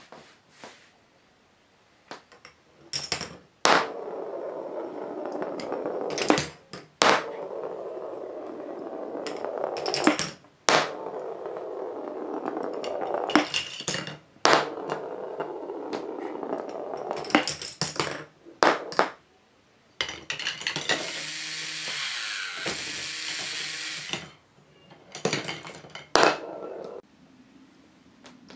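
K'nex ball machine separator running: plastic balls drop and clack through the switching mechanism, then roll along the plastic rod tracks with a steady rolling rumble, over and over every few seconds. One run about twenty seconds in sounds brighter and hissier.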